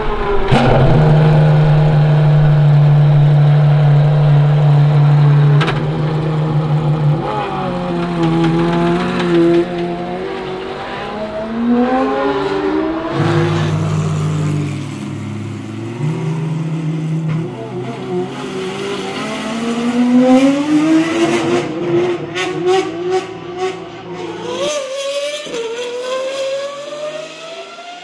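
Pagani Huayra R's naturally aspirated V12 engine: a loud, steady high idle, then revs rising and falling as the throttle is worked. A run of sharp cracks comes near the end, followed by revs climbing steadily as the car accelerates.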